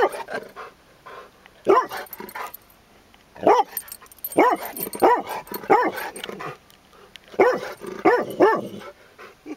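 Chocolate Labrador retriever barking inside a car, about eight loud barks, some single and some in quick runs of two or three.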